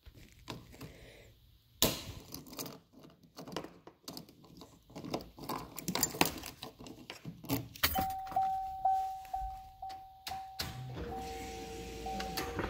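Clicks, knocks and a jangle of keys as parts are handled at the fuel filler. About eight seconds in, a steady whining tone starts and keeps going, with a second, lower tone joining near the end.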